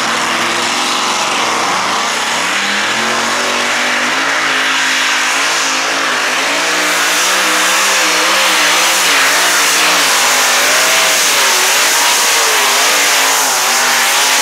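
Modified pulling tractor's several supercharged engines running flat out under load during a pull. The engine note climbs, then wavers up and down as the revs rise and fall.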